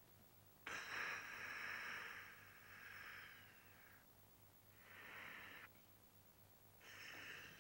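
A person breathing in long, hissing breaths, three of them: the first lasts about three seconds, the second is short, and the third runs on past the end.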